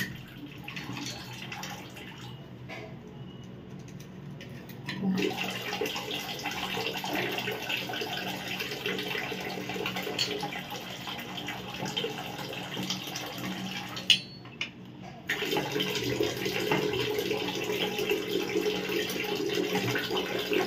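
Steady rush of running water that comes on about five seconds in and breaks off for about a second near the end, with a few faint metallic clicks of pliers working a rusted tap nut.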